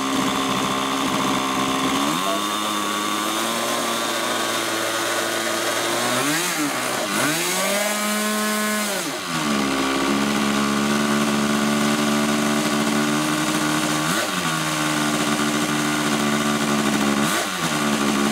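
O.S. .46 two-stroke glow engine of a model airplane running on the ground with the plane held back by hand. The engine is opened up about seven seconds in, holds a higher pitch for about two seconds, then drops back, with two brief dips later.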